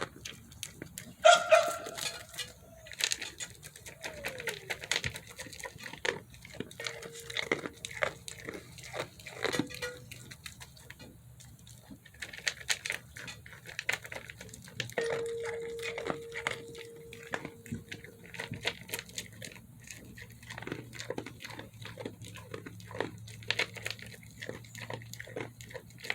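A goat eating feed: many small crunching and knocking sounds, with a short animal call about a second in.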